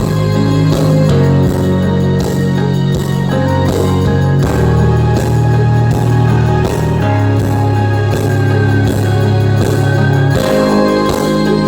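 Guitar-driven rock music with a heavy, sustained bass line and a steady beat, played through a Sony SAW super woofer speaker (SS-XB88V) as a bass test.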